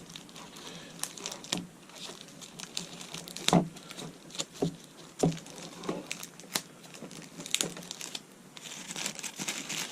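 Packaging and parts being handled out of a product box: scattered light clicks and taps, with a rustle of crinkling plastic wrap near the end.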